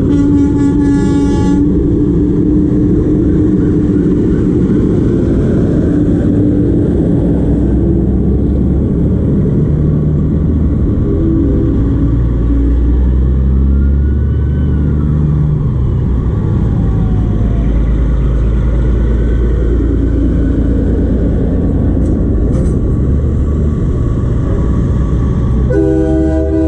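Diesel semi trucks rumbling steadily as they pass close by, with a multi-tone air horn blast at the start and another horn blast beginning near the end.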